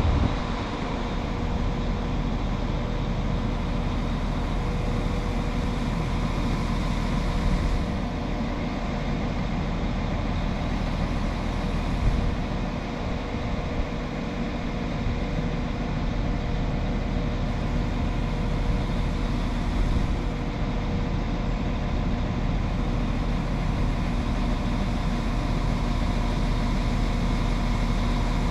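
Northern Class 195 diesel multiple unit standing with its underfloor diesel engines idling: a steady low hum with a constant whine over it.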